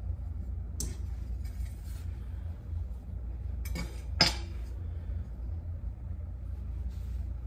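A slotted metal spatula clinking and scraping against a stone countertop as it works under the dough, then a sharp clink about four seconds in as it is set down, over a steady low hum.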